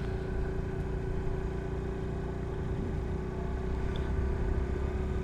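Motorcycle engine running steadily while riding along, an even hum with a low rumble beneath it.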